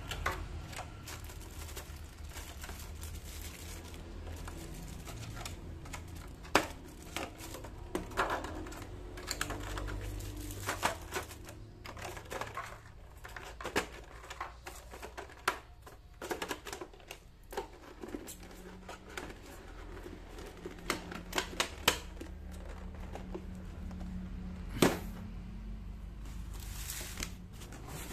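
Hands handling product packaging: scattered clicks and taps from a clear plastic tray and a boxed accessory insert, with crinkling of plastic bags and rustling of a cardboard carton. One louder click comes near the end.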